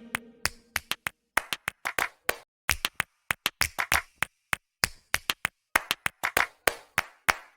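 A run of sharp hand claps or taps, a few a second with silence between them, as a percussion break in the background music.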